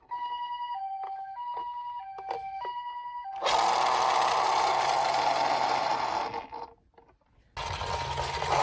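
Japanese-style two-tone ambulance siren alternating high and low ("pee-po"), about two and a half cycles. It gives way to a louder, steady rolling rattle like a toy car's wheels running down a track, which stops for about a second near the end and then starts again.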